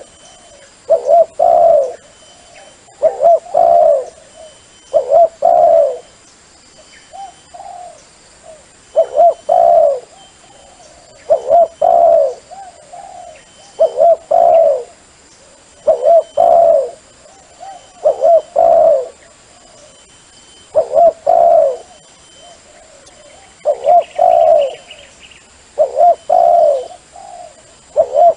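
Dove cooing: repeated phrases of about two low coo notes, roughly one phrase every two seconds with a few longer pauses, played as a call for luring doves.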